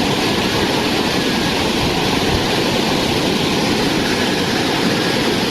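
Steady rush of floodwater running down a normally dry arroyo.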